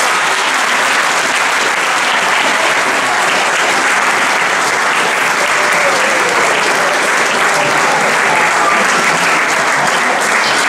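Audience applauding, a steady, dense clapping that keeps up at an even level throughout.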